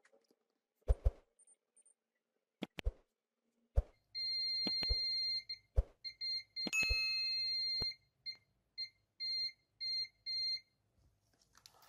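UNI-T UT39C+ multimeter's continuity buzzer beeping as the test probes touch points on a power-bank circuit board, after a few sharp clicks of the probe tips. It gives two long steady beeps, then a quick run of short beeps, each sounding while the probes find a short across the board's capacitor bank.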